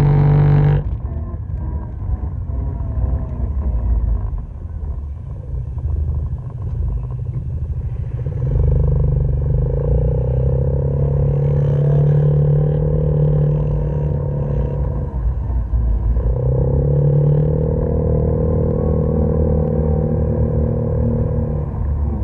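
Background music cutting off about a second in, then the engine of the camera-carrying off-road vehicle running along a dirt track over a low rumble. From about a third of the way in the engine holds high, steady revs, eases off briefly a little past two-thirds of the way, then pulls back up.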